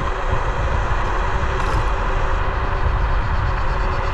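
Bluetran Lightning 72V electric scooter riding along: wind buffeting the microphone and tyre noise, with a thin steady motor whine running through it.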